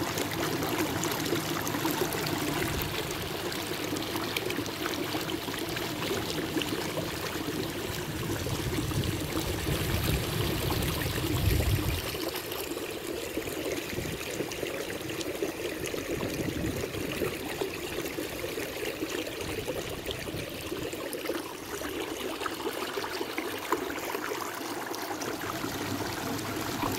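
Water trickling and splashing as a kayak is paddled: drips and splashes off the paddle, with water lapping along the hull. A low rumble builds about a third of the way in and cuts off suddenly.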